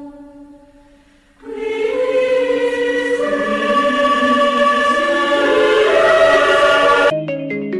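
Background music: a held chord fades out, then a choir-like swell of sustained voices builds. About seven seconds in it cuts abruptly to a bright tune of short plucked notes.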